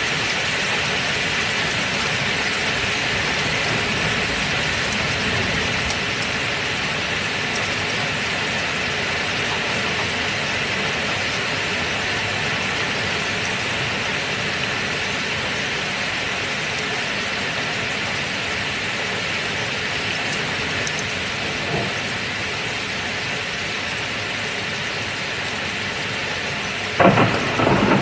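Steady heavy rain, AI-generated: an even, dense hiss. A faint knock a little past twenty seconds in, and two loud sharp knocks close together near the end.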